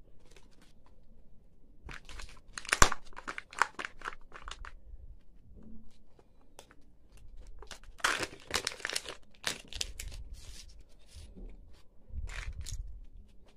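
Crinkling and tearing of a Kinder Joy egg's plastic capsule and foil seal being peeled open by hand, coming in bursts, with one sharp plastic click about three seconds in.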